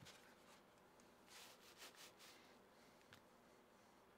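Near silence, with faint rustling and a few soft clicks as over-ear headphones are put on.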